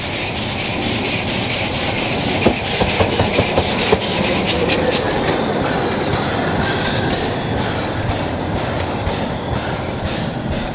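Narrow-gauge steam locomotive 99 1782-4 running past close by, with a steady rumble of wheels and running gear. A quick run of sharp clicks comes about two and a half seconds in, as the wheels pass over rail joints.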